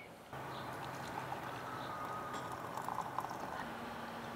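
Water boiling, a steady hiss of bubbling liquid with a faint low hum underneath.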